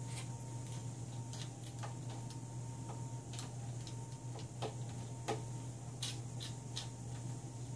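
Irregular small clicks and taps of metal screws, washers and a screwdriver while a plastic bracket is being screwed to a particleboard base, over a steady low hum.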